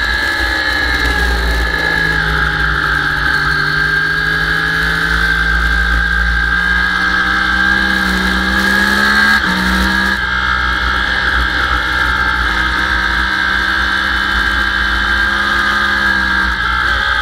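Sport motorcycle engine at speed on a race track, heard over heavy wind noise on a bike-mounted camera. The revs drop at the start, climb slowly, jump briefly about nine seconds in and fall back, then climb again near the end.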